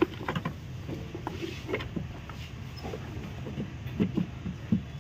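Scattered light clicks and knocks of hands handling a plastic diesel fuel filter housing and its hose fittings under a car bonnet, with a few sharper taps about four seconds in.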